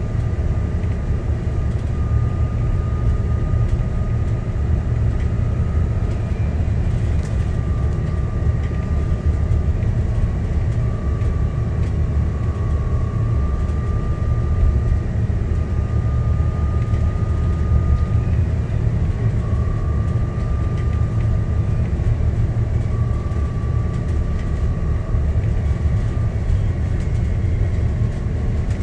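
ADL Enviro 400 MMC double-decker bus heard from inside while under way: a steady heavy engine and road rumble. A thin whine comes and goes over it in stretches of a few seconds.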